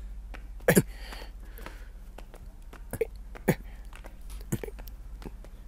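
A few scattered knocks and bumps from a large wooden panel being lifted and shifted by hand.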